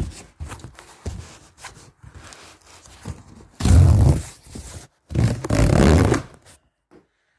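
Corrugated cardboard box being torn open: light knocks and rustles of handling, then two loud rips, each about a second long, one after the other.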